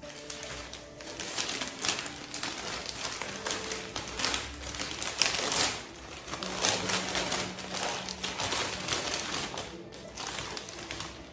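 Clear plastic bags crinkling and rustling as a baby's frock is handled and packed into one, with soft music underneath.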